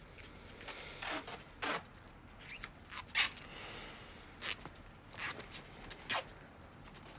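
Close, intimate breathing and soft kissing sounds of two people, with fabric rustling: short, irregular breaths and lip and clothing noises coming a second or less apart.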